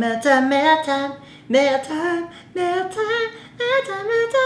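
A woman's voice singing a melody in short phrases, about a second each, the pitch gliding and stepping between notes; a faint steady low hum runs underneath.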